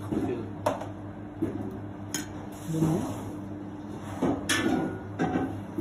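Kitchen clatter: dishes and metal utensils knocking and clinking against a steel counter, a handful of sharp strikes over a steady low hum. The loudest strike, about four and a half seconds in, rings briefly.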